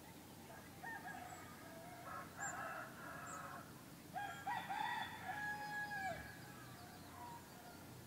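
Roosters crowing: a short crow about a second in, another around two to three seconds, and a longer crow of about two seconds starting near four seconds.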